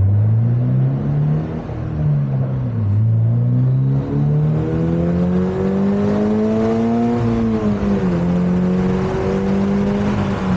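Toyota GR86's 2.4-litre flat-four with an HKS Spec-L exhaust, heard from inside the manual car with the windows down, pulled hard to about 7,000 rpm. The revs climb, fall at a gear change, climb again in a long pull, then drop at an upshift about eight seconds in and hold steady, over wind and road noise.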